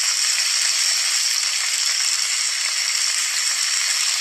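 Chicken pieces and onion frying in olive oil in a frying pan, with crushed tomato on top: a steady, even sizzle.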